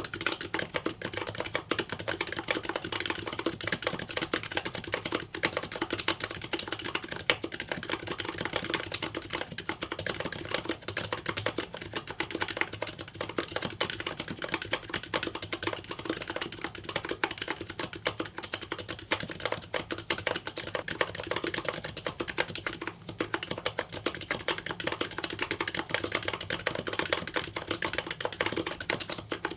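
Fast, continuous typing on an aluminum-case HHKB-layout Topre-style keyboard: MetaPulse MX-stem sliders with #5 rings over 50 g domes, under GMK keycaps, giving a steady stream of rounded keystroke clicks.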